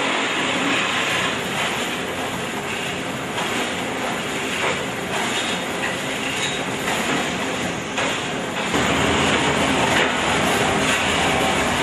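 Concrete block-making plant machinery running with a steady mechanical clatter and a few knocks. About nine seconds in, a deeper engine rumble joins as a wheel loader drives up.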